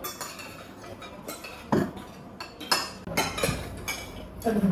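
Cutlery clinking against plates and dishes during a meal, a few separate sharp clinks.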